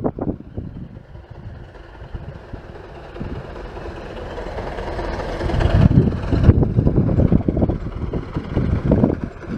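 A 15-inch-gauge steam train running along the line, growing steadily louder over the first six seconds as it comes closer, then loud, with wind buffeting the microphone.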